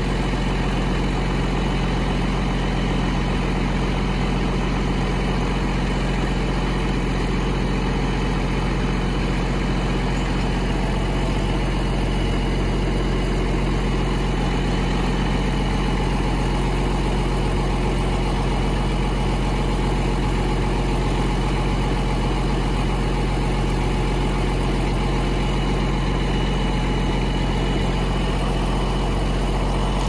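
Tractor engine idling steadily, a loud, even low hum that does not change.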